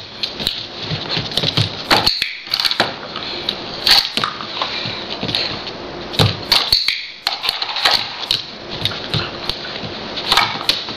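Standard poodle puppy pawing and scratching at a light switch: irregular sharp clicks, taps and scrapes.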